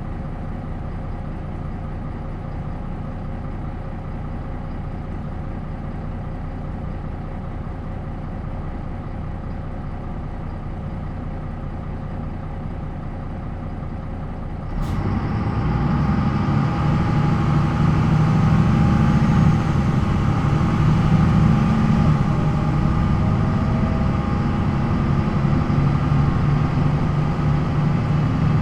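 MAN NL 263 bus's D28 diesel engine idling steadily; about halfway through a short sharp sound, then the engine runs louder under load as the bus pulls away, the sound swelling and easing a little as it accelerates.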